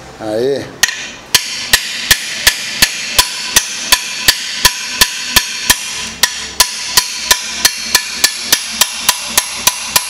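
A hammer beating steadily on a combination wrench wedged into a stuck core plug of a Corsa GSI 1.6 16v cast-iron engine block, driving the plug out. There are about two dozen ringing metal blows, about three a second at first and quickening to about four a second near the end.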